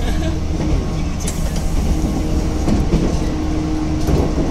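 Running noise of a 185 series electric train heard from inside the passenger car at speed: a steady low rumble of wheels on rail, with a few light clicks.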